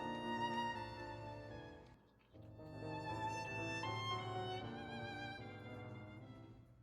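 Background music led by a violin, a melody of held notes that breaks off briefly about two seconds in before going on.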